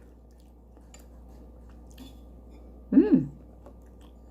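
A person chewing soft food quietly with faint small clicks, and one short hum about three seconds in whose pitch rises and then falls.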